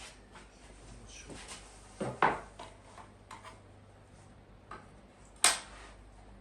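Scattered clacks and knocks of hard objects being handled and set down, with two louder sharp knocks, one about two seconds in and one near the end.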